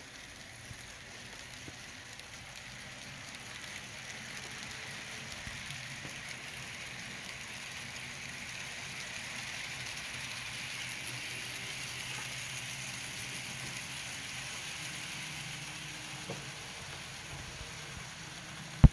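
HO scale model freight train rolling on its track: a steady light rattle and clatter of the wheels and cars. It swells as the cars run past, eases somewhat toward the end, and is cut by a sharp knock at the very end.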